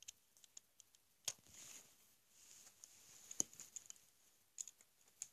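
Faint, scattered clicks of plastic Lego bricks being handled and pressed onto a small model, a few sharp ticks over near silence.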